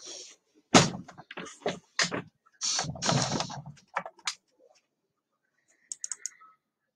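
A run of irregular clicks and knocks, a few heavier thuds among them, and a quick cluster of light clicks about six seconds in.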